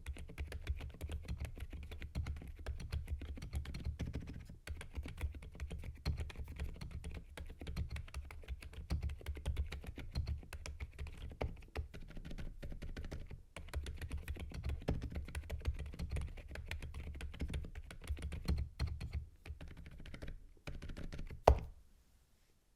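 Continuous fast typing on a quiet custom GMK87 mechanical keyboard with Akko Fairy Silent linear switches, PBT keycaps and foam dampening. It ends near the finish with one sharper, louder keystroke.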